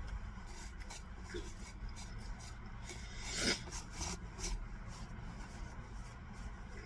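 Scattered short scraping and handling noises over a steady low rumble, with one brief louder scrape about three and a half seconds in.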